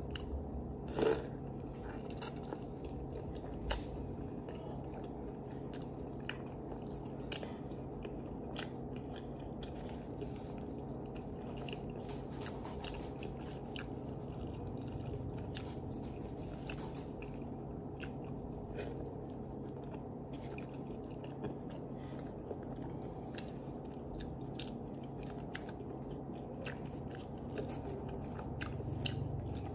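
Close-up chewing and biting of a chicken avocado sandwich and bread, with scattered wet mouth clicks and a denser patch of crunchy ticking partway through. A sharp click about a second in is the loudest sound, over a steady low hum.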